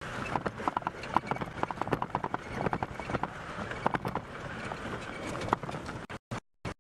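Open safari vehicle jolting over rough bush ground, its body and fittings rattling and knocking irregularly over a steady engine rumble. The sound cuts out in short gaps near the end.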